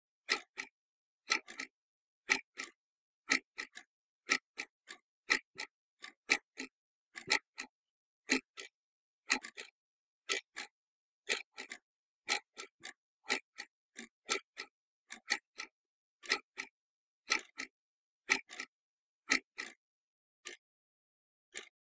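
Clock ticking, about once a second, each tick followed closely by a softer second click, with nothing else between the ticks; the ticks thin out near the end.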